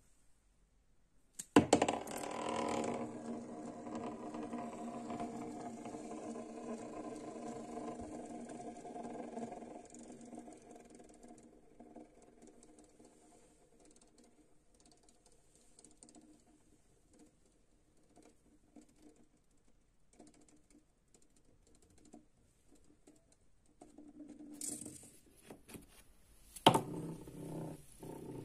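Handmade paper spinning top whirring on its stick tip: it lands with a sharp tap about a second and a half in, then hums steadily and slowly fades over about ten seconds. Near the end there are a few more taps and a sharp click as it is spun again, and the whir comes back.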